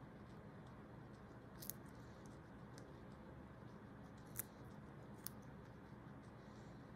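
Guinea pigs biting and chewing raw carrot sticks: a few crisp crunches, the loudest about a second and a half in and twice more later, over faint chewing.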